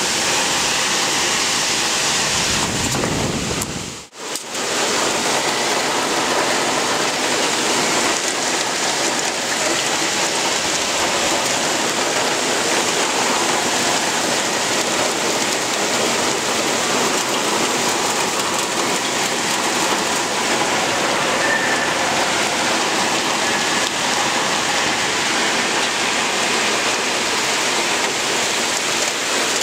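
Heavy rain mixed with hail pouring down, a steady dense rush of water. About four seconds in, the sound cuts out for a split second.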